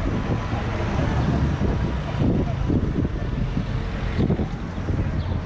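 Steady low rumble with indistinct voices of people talking over it.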